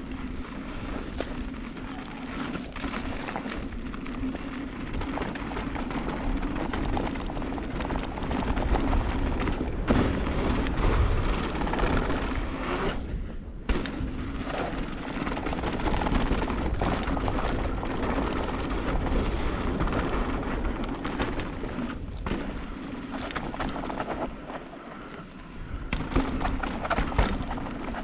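Mountain bike descending a dry dirt singletrack: tyres rolling over the dirt and the bike knocking and rattling over bumps, with wind buffeting the microphone. A steady low hum runs underneath, and there is a brief dip about thirteen seconds in.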